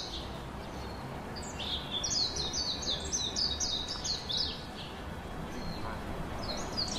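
A songbird singing: runs of quick, high, falling chirps, about four or five a second. The longest run starts about a second and a half in and lasts some three seconds, and a shorter one comes near the end.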